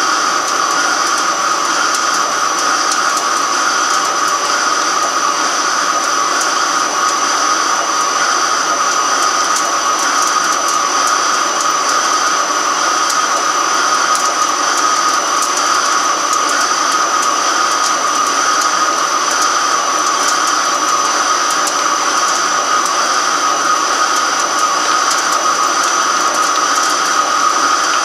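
Microcut BNC-6500 heavy-duty flat-bed lathe turning a large metal workpiece: a steady machining whine over a hiss, with faint scattered ticks.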